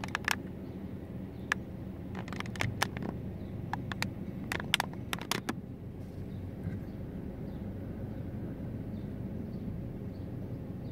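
Steady low hum of a car idling while stopped in traffic, heard inside the cabin. About fifteen irregular sharp clicks come in the first five seconds or so, then stop.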